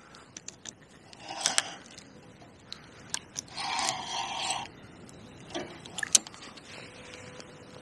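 Fishing tackle being handled: scattered light clicks and two short scraping rushes, the longer one about four seconds in.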